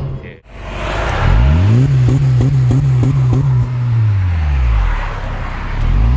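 Honda Civic FC 1.8's four-cylinder engine heard at the tailpipe through an aftermarket muffler: revved up about a second in, held for about three seconds, let fall back toward idle, then revved again near the end. A quiet, solid exhaust note.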